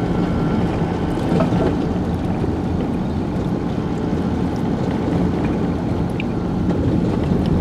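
Manual-gearbox vehicle driving along in third gear: a steady engine and road noise.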